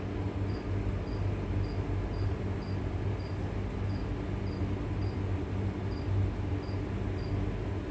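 A cricket chirping at an even pace, a short high chirp about every half second, over a steady low hum.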